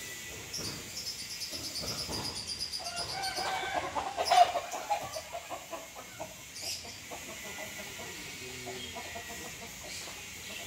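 Domestic fowl calling: a high rapid chattering over the first few seconds, then one loud pitched call about four seconds in.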